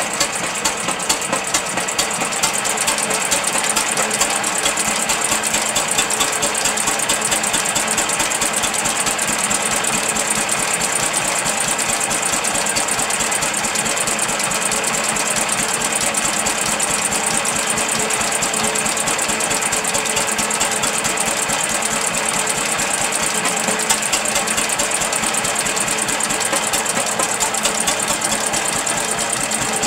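Restored Guyot type C single-cylinder stationary engine running steadily with a fast, even clatter.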